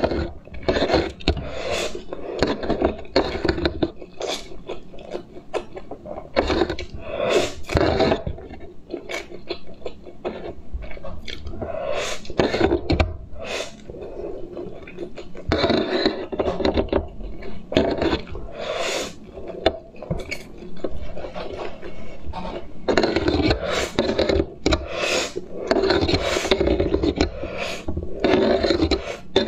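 Close-miked slurping and chewing of instant noodles, repeated strand after strand, with the fork scraping and clinking on the plate.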